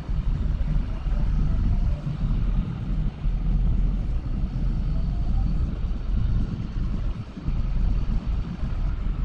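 Low, steady engine noise of a John Deere loader tractor's diesel as it manoeuvres alongside in deep snow, heard from inside a vehicle cab.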